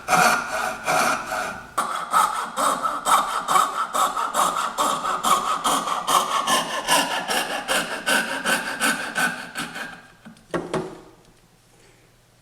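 Hand coping saw cutting through wood in quick back-and-forth strokes, stopping about ten seconds in as the cut finishes. A single knock follows soon after.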